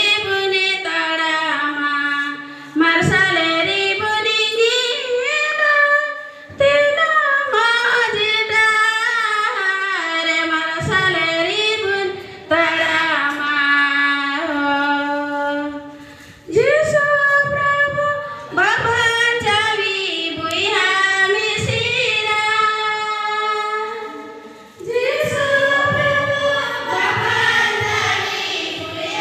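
A woman's voice singing a slow melody in long phrases, with short breaks between the lines.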